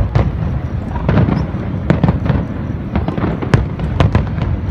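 Aerial fireworks display: a rapid, irregular string of booms and sharp bangs over a continuous low rumble, one of the loudest cracks coming about three and a half seconds in.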